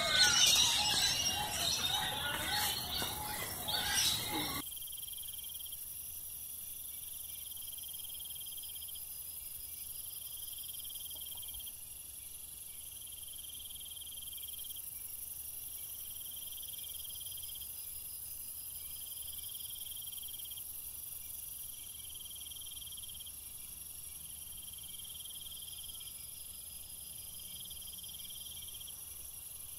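Loud bird calls for the first few seconds, then an abrupt drop to steady insect chirring, likely crickets: a high pulsing trill that repeats every second or two over a constant high hiss.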